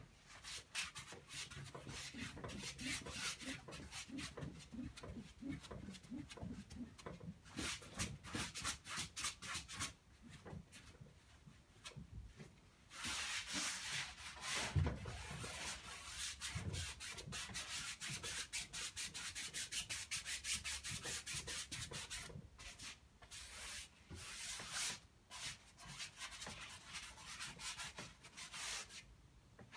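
Paintbrush scrubbing oil paint onto unstretched canvas in fast, repeated rasping strokes, pausing twice.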